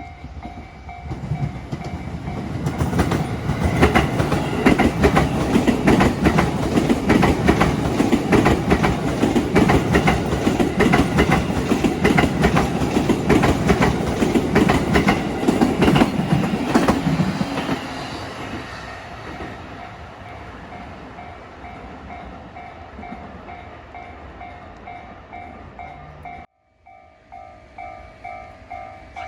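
Freight train running past a level crossing, its wheels clicking rapidly over the rail joints. It is loudest through the middle and fades away after about 18 seconds. The crossing's warning bell rings in a steady pulse, and after a brief break near the end it rings on, louder.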